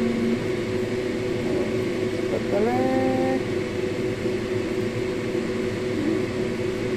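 Steady machine-like hum with a few held tones, like a fan running, and a short pitched, gliding sound about two and a half seconds in.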